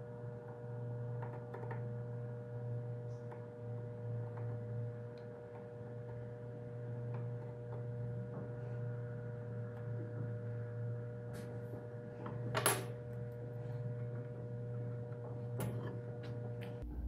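Light clicks and taps of a hand tool and a small wooden workpiece handled on a wooden workbench, over a steady low hum; one sharper click about three-quarters of the way through.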